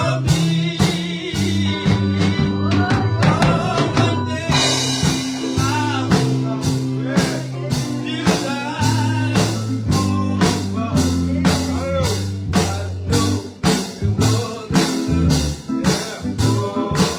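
Live gospel band music with a steady drum beat about twice a second under bass and guitar lines, as heard in a church service; some singing may be mixed in.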